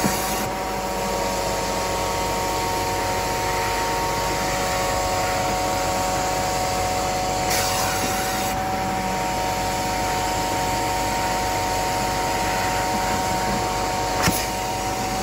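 Carpet-cleaning extraction machine running steadily, its vacuum motor giving a constant whine of several tones over a rushing noise, with two brief clicks.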